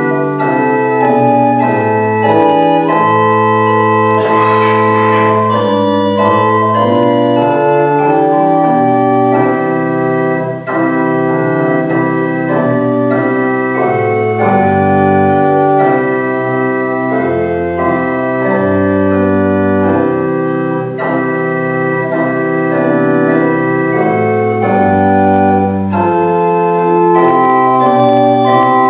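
Church organ playing a slow piece in held chords that change every second or two, with low pedal notes underneath.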